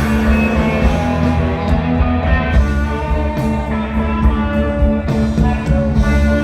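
Rock music led by guitar over a continuous bass line, with no singing.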